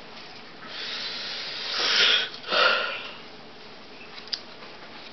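A person's breathing close to the microphone: a rising breathy hiss, then two loud sniff-like huffs about two seconds in. A single short click comes near the end.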